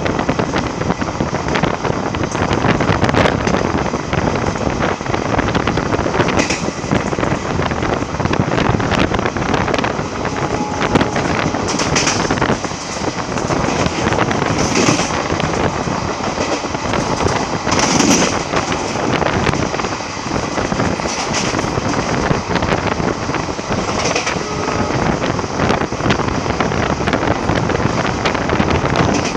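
Passenger express train running at speed, heard from an open coach doorway: a steady rumble and rush of wheels on rails mixed with wind on the microphone. Brief, sharper clatters come every few seconds.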